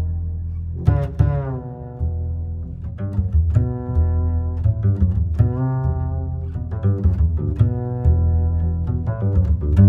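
Background music: a melody of short, sharply struck notes over a heavy, steady bass.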